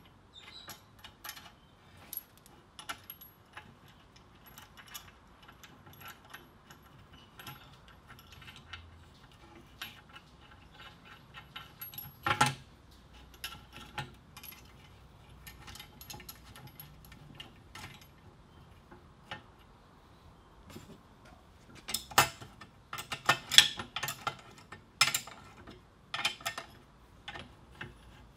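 Steel bolts and washers clinking against the steel frame of a belt grinder as they are fitted by hand: scattered small metal clicks, one louder knock about halfway, and a dense run of clicking and clanking near the end as a spanner goes to work on the bolts.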